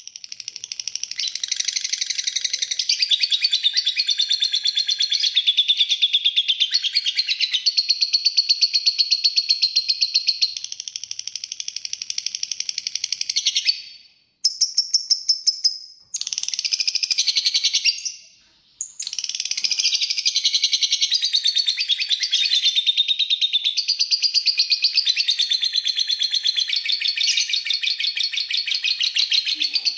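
Lovebird's long 'ngekek' song: a very rapid, high-pitched chattering trill held for many seconds at a time. It breaks off briefly a little under halfway through, comes back in two short bursts, then runs on unbroken.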